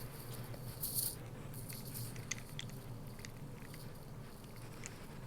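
Faint squishing and rubbing of a Nee-Doh stress ball being squeezed in the hands, with scattered small clicks.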